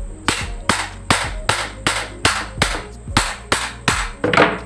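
Cooler fan motor's metal housing and end cover being knocked repeatedly to loosen and separate them: about eleven sharp strikes, a little over two a second, the last the loudest.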